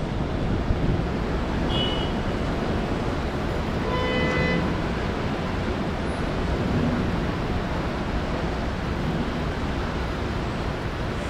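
Steady rumble of subway trains on elevated tracks, with one short horn toot, under a second long, about four seconds in. A brief high squeal comes just before two seconds in.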